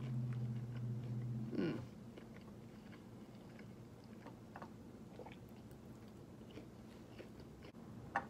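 A person chewing and biting fried chicken nuggets and fries close to the microphone, with scattered small mouth clicks. A low steady hum fills the first second and a half and ends in a brief falling sound.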